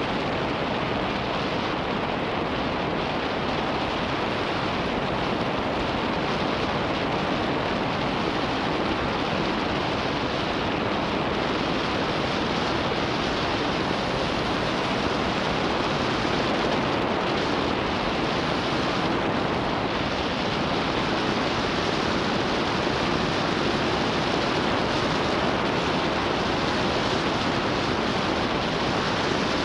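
Steady rush of wind and tyre noise from a car driving along a road, picked up by a camera mounted on the outside of the car.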